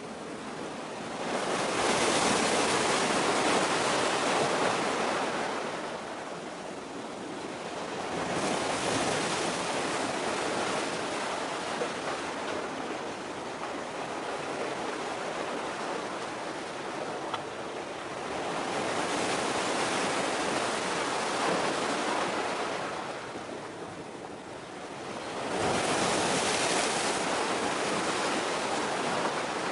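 Waves washing in along the shore, a rushing hiss that swells up and dies away four times, each surge lasting a few seconds.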